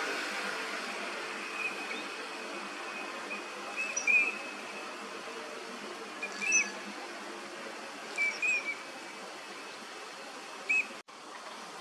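Eurasian teal giving short, high whistled calls in small clusters of one to three, every two seconds or so, over a faint low hum that fades during the first few seconds.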